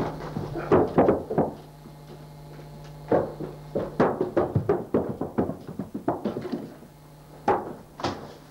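Heavy thuds and knocks in irregular clusters, in the pattern of people running on floorboards or stairs.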